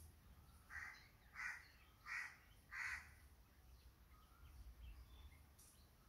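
A crow cawing four times, the caws short and evenly spaced about two-thirds of a second apart.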